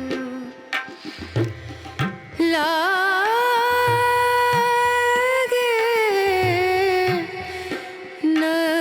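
Background music in an Indian classical style: tabla strokes, then from about two and a half seconds in a long held melodic line that bends slowly, breaks off near seven seconds and comes back near the end.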